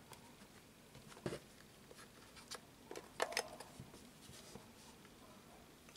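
Faint clicks and light taps from handling a Mustool MDS8207 plastic multimeter and its test-lead plugs in their sockets: a handful of separate small knocks spread over a few seconds.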